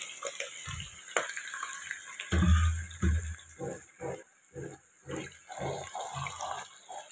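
Diced raw potatoes being stirred with a wooden spatula in a nonstick pot over a faint sizzle of oil: a dull knock a little over two seconds in, then short scraping strokes about two a second.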